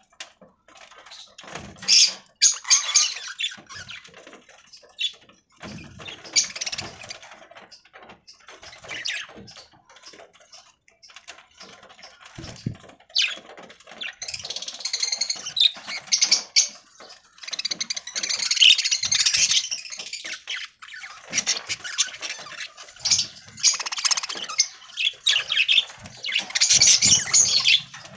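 Budgies chattering and squawking in irregular bursts of high chirps, busiest in the second half, with a few soft knocks among them.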